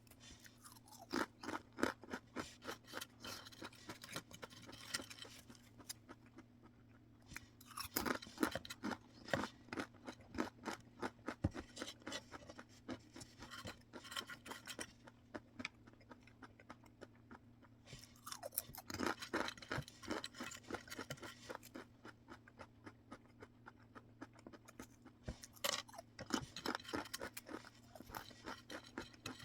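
Crunchy snacks being chewed close to the microphone: crisp crackling crunches in several bouts of chewing, with short pauses between mouthfuls.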